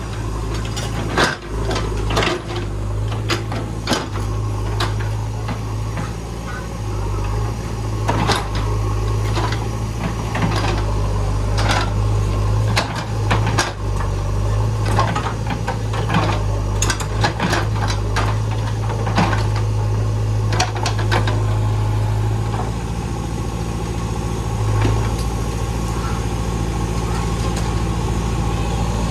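JCB backhoe loader's diesel engine running steadily, with many scattered sharp clanks and knocks over it; the engine's steady hum eases a little about three-quarters of the way through.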